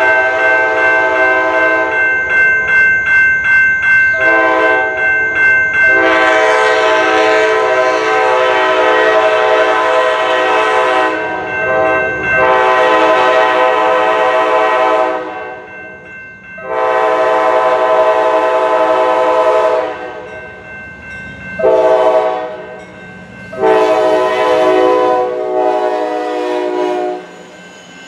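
Multi-chime air horn of an Amtrak P42DC passenger locomotive sounding a chord in repeated blasts as the train approaches. It ends with the grade-crossing signal of long, long, short, long blasts, with a bell ringing faintly underneath.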